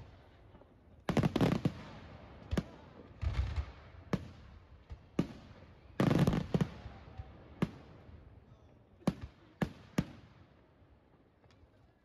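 Fireworks display: aerial shells bursting overhead, over a dozen sharp bangs at irregular intervals, each trailing off in a fading rumble. The loudest bursts come in quick clusters about a second in and about six seconds in.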